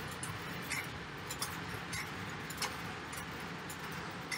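Steady background noise with a low hum, broken by scattered light clinks at irregular intervals.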